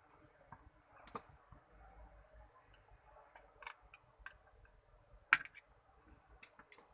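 Irregular light clicks and taps of small hard parts being handled, with one sharper click about five seconds in.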